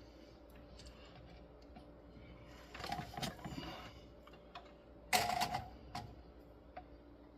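Small hard objects clicking and rattling in two short bursts, about three and five seconds in, with a few single light ticks between: tools and parts being handled at a soldering bench.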